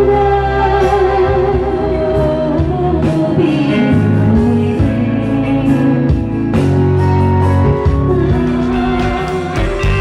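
A woman singing into a handheld microphone through a PA, over accompanying music with guitar and a steady bass. Her voice holds long notes and slides between pitches.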